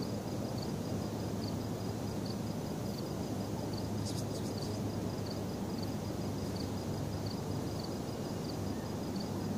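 Outdoor night ambience: a steady low hum with a cricket's short high chirp repeating about every two-thirds of a second, and a brief run of rapid high clicks about four seconds in.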